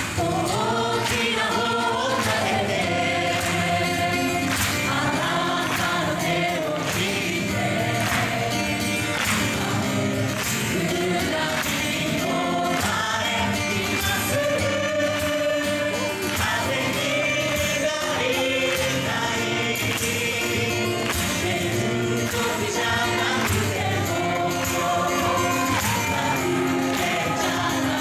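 A large group singing together in chorus over instrumental accompaniment, with a steady beat.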